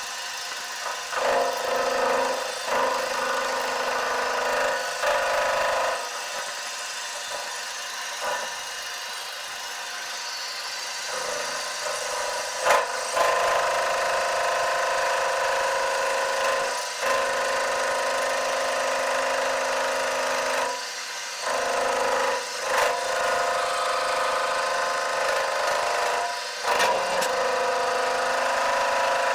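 Metal lathe running, turning down a steel vise screw: a steady mechanical whine made of several held tones, dipping briefly several times as the cut or the machine eases off.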